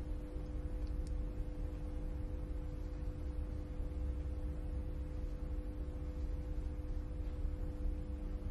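Quiet sustained background music: two steady held tones over a low hum.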